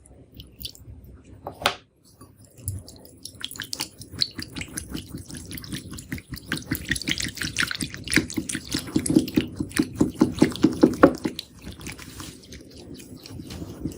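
Wet, sticky slime being worked, giving a stream of small clicks and squelches; about eight seconds in the clicks quicken into a fast regular run that stops about three seconds later.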